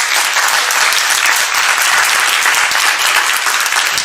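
Congregation applauding after an organ piece: steady clapping from many hands.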